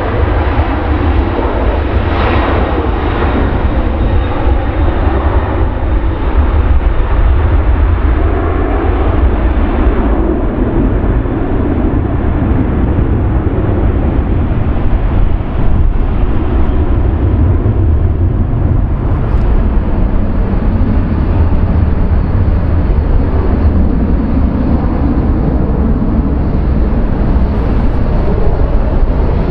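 Boeing 767-300ER's twin jet engines at takeoff power: a loud, steady, deep rumble as the airliner departs, with its higher-pitched part fading after about ten seconds.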